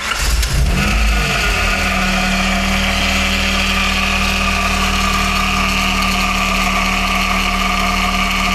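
Honda Prelude fifth-generation power steering pump running with the engine just started: after a brief rise and settle in engine speed in the first second or two, the pump gives a steady whine over the idle. The noise comes from air in the power steering system while it is being bled, and the owner is unsure whether it means the pump is failing.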